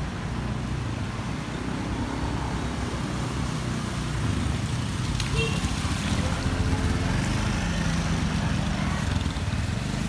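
Motorbike engine running as it pushes through floodwater, with a steady hum that grows louder about four seconds in.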